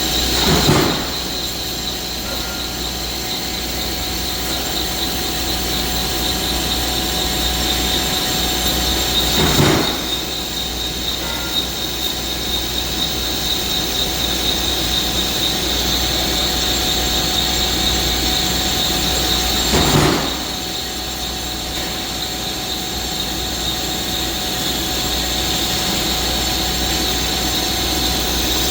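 Metal lathe cutting steel, running steadily with a high-pitched whine, and three short louder surges about ten seconds apart.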